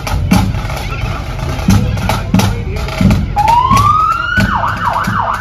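Pipe band drums beating a steady marching rhythm. About three seconds in, a siren winds up in a rising wail, then switches to a fast yelp near the end.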